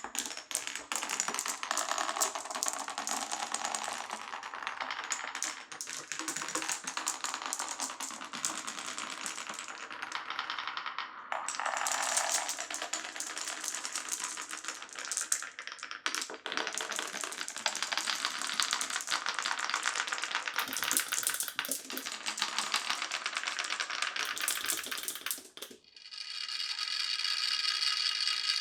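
Glass marbles rolling and clattering down a wooden marble run, a dense, continuous stream of small clicks and rattles. Near the end the clatter stops and a steady ringing tone of several pitches takes over.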